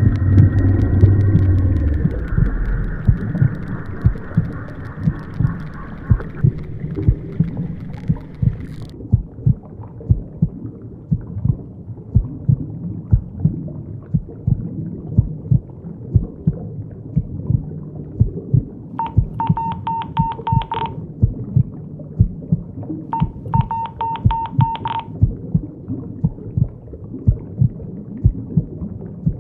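Layered horror sound design built from everyday sounds: a low heartbeat-like thumping repeats once or twice a second under a dull hum. A noisy rumble with crackle fades out in the first several seconds. Later, two short bursts of a pulsing, telephone-like ringing tone sound a few seconds apart.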